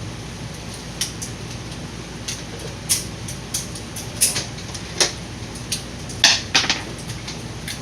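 Irregular light clicks and knocks of pistol cartridges and magazines being handled during magazine loading, over a steady low ventilation hum; the loudest pair of clicks comes about six and a half seconds in.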